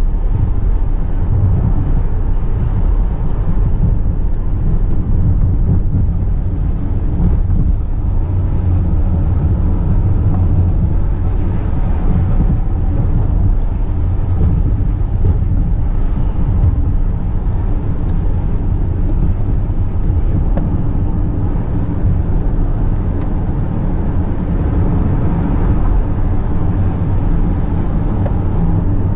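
Car engine and tyre noise heard from inside the cabin while driving: a steady low rumble that stays level throughout.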